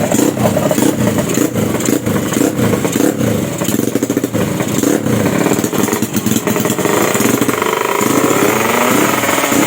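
Drag-bike motorcycle engine revved in quick repeated blips, then climbing steadily in pitch from about seven seconds in as it accelerates.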